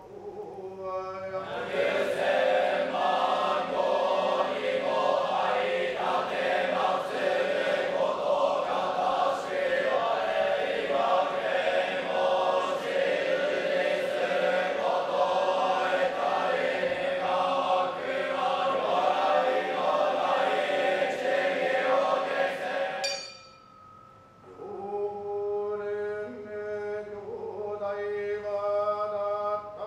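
Nichiren Buddhist monks chanting a sutra together in unison. A single voice holds long tones at the start, the full group joins about a second and a half in, and the group stops abruptly about 23 seconds in. After a short pause a single voice resumes with long held tones.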